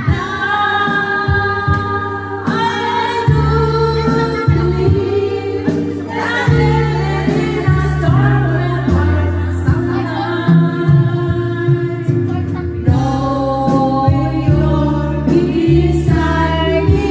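A woman singing karaoke into a microphone, her amplified voice holding long notes over a music backing track.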